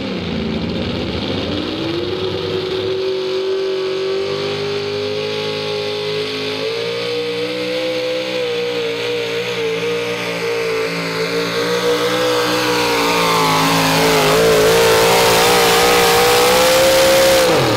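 A 4x4 pulling truck's engine at full throttle dragging a pulling sled: it revs up over the first couple of seconds, holds a high, steady note, grows louder late on, then falls away sharply right at the end as it comes off the throttle.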